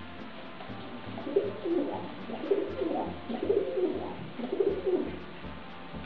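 A bird cooing: a run of low, wavering coos lasting about four seconds.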